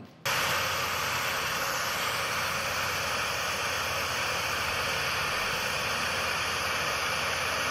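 Sound-therapy healing audio track: a steady rushing hiss like a sleep noise machine, with a faint low hum beneath. It starts abruptly just after the beginning and holds unchanged.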